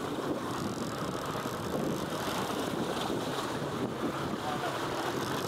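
Wind buffeting the microphone on an open fishing boat: a steady rushing noise, with water moving around the boat.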